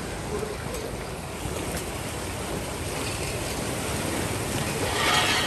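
A steady rushing noise with a low rumble, which swells briefly near the end.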